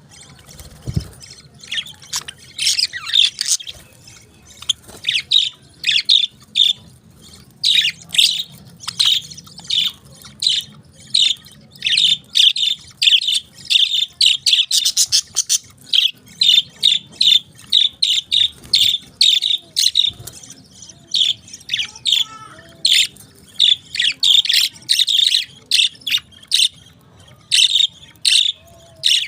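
Pet parakeets chirping rapidly: a dense run of short, high chirps in quick succession, with brief pauses now and then.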